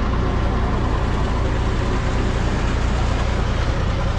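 Boat engine running steadily under way: a constant low drone with an even rush of noise over it.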